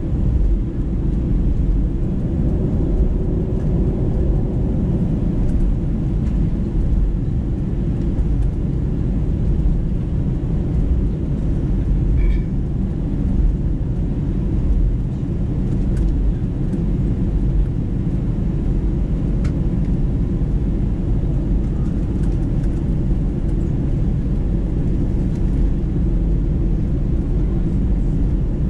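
Airbus A320 cabin noise while taxiing: a steady low rumble from the jet engines at low power and the wheels rolling over the taxiway.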